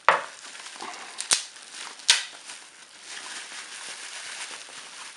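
Plastic bubble-wrap bag crinkling and rustling as it is handled, with three sharp crackles in the first couple of seconds.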